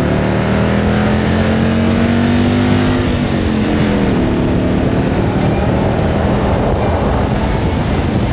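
Air-cooled flat-twin engine of a Citroën 2CV-based Burton car under way. Its pitch climbs steadily for about three seconds, drops over the next second, then settles into rougher, noisier running.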